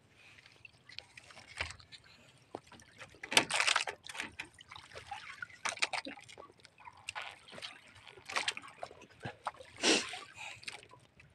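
Water splashing and sloshing in short, irregular bursts, the biggest a few seconds in and again near the end.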